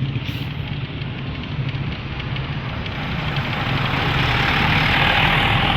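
Large bus's diesel engine running with a steady low rumble, while road and tyre noise swells over the last couple of seconds as the bus comes past.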